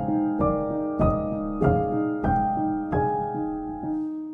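Background piano music: a slow, gentle melody, a new note or chord struck about every half second and left to fade.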